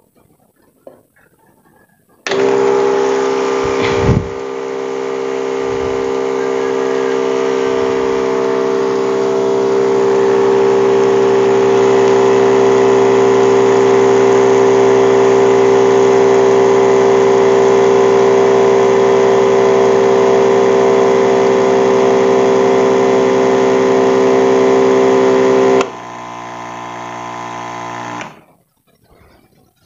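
Electric pumps of two battery knapsack sprayers, a Crown CPS-B16DN and a Robot RT-16E, switch on together about two seconds in and run with a loud, steady motor hum while pumping water into bottles, with a sharp click soon after the start. About 24 seconds later the Robot's pump cuts out, and the Crown's runs on quieter for two more seconds before it stops too.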